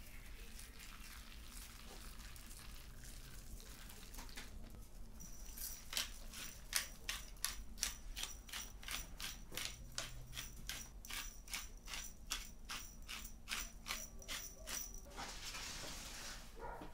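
A hand-turned pepper mill grinding over a tray of fish, a steady run of crisp grinding clicks about three a second that stops after about ten seconds. A short scraping hiss follows near the end as the steel tray is moved.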